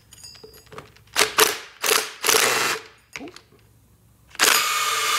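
Cordless Snap-on impact wrench hammering in a string of short trigger bursts on a rusty strut top nut. The nut doesn't break loose, and the strut shaft spins with it.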